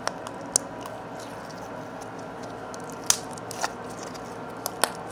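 Pink slime squeezed and worked by hand close to the microphone, giving a handful of sharp little pops and squelches spread out over a faint steady background.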